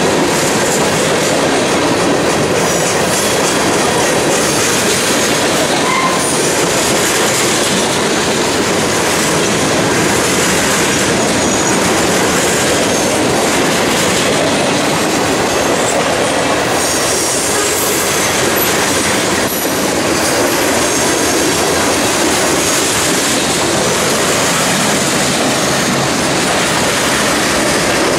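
Freight cars of a mixed freight train rolling past close by: a steady, loud rush of steel wheels on the rails, with thin, high wheel squeals coming and going.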